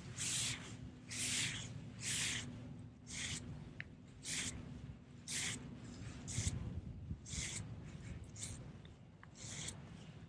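Slow lure retrieve on a spinning reel: a rubbing swish about once a second as the handle is turned, with a faint low hum through the first half.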